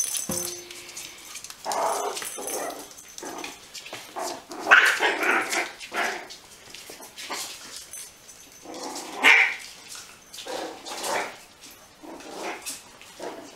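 Puppies yipping and barking in play, short high barks coming in clusters, loudest about five seconds in and again at about nine seconds.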